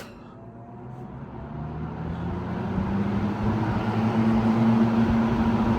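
Montgomery Ward Signature box fan speeding up to its high setting: the rush of air grows louder over the first three seconds or so, then holds steady over a low motor hum.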